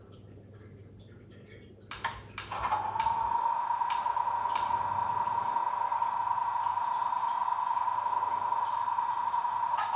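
Sound-fitted model Class 37 diesel locomotive's sound decoder starting up through its small speaker. A couple of sharp clicks come about two seconds in, followed by a steady high-pitched whine that holds.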